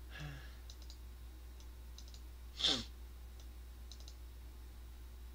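A few faint scattered clicks of a computer keyboard or mouse over a low steady electrical hum. About two and a half seconds in there is one short breathy sound.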